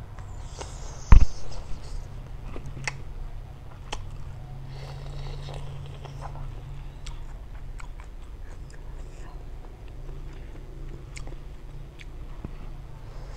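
Close-miked eating: biting into and chewing a whole half-cooked shrimp, with wet mouth clicks and smacks. A sharp loud click comes about a second in, and there are two breathy hisses.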